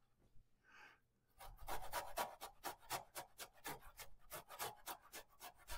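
Fresh ginger root grated on a metal box grater: quick back-and-forth scraping strokes, about five or six a second, starting about a second and a half in.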